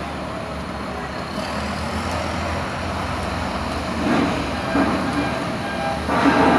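Steady rumble of road traffic and heavy diesel vehicles around a roadworks site, with faint voices briefly about 4 and 6 seconds in.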